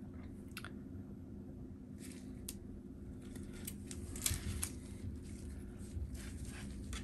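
Faint handling noises of gloved hands working with thin trackpad flex cables: a few scattered light ticks and rustles over a steady low hum.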